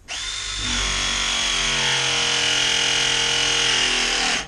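Ridgid RP 200 battery press tool pressing a copper ProPress fitting on a water line. Its motor runs loud and steady for about four seconds, sagging slightly in pitch as the jaws close under load, then cuts off suddenly at the end of the press cycle.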